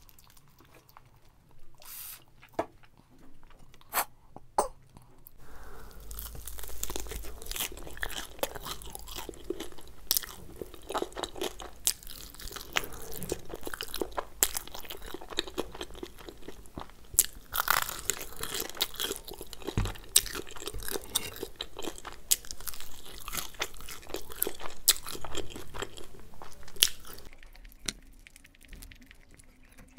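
Close-miked crunching and chewing of a crispy batter-fried soya drumstick, starting about five seconds in and continuing until near the end. A few sharp clicks come before it.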